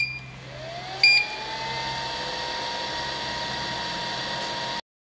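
3D vacuum sublimation heat press starting its cycle: two beeps from the control panel a second apart, then the vacuum pump motor spins up with a rising whine and runs steadily with a hiss. The sound cuts off abruptly near the end.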